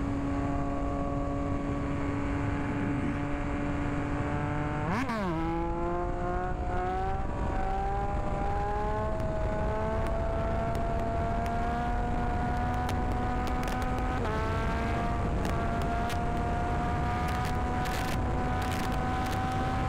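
Motorcycle engine running under way, with wind rumble. About five seconds in the revs rise quickly and drop sharply into a new gear, then the pitch climbs slowly as the bike accelerates, with another small drop for a shift about fourteen seconds in.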